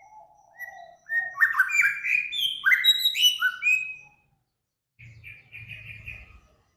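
Songbird singing a phrase of loud, clear whistled notes that slide downward, followed after a short pause by a brief rapid trill.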